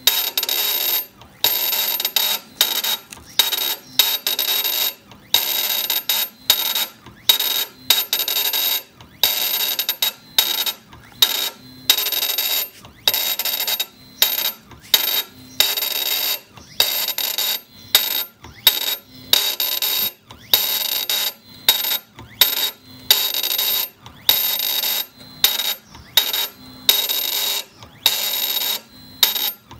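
CNC granite engraving machine cutting stone in short, high-pitched scraping bursts with a steady ringing tone in them, starting and stopping roughly once a second.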